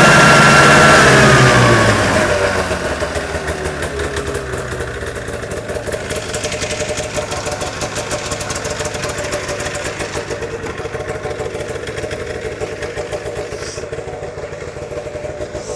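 Fan-cooled two-stroke engine of a 1998 Arctic Cat Z440 snowmobile, revved high and then falling back over about two seconds to a steady idle.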